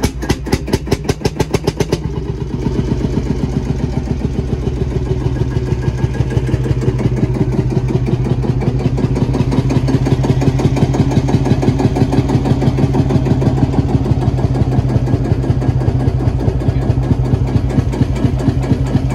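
Vintage tractor engine running with a rapid, even beat. For about the first two seconds it gives sharp, regular knocks, then it settles into a steadier run.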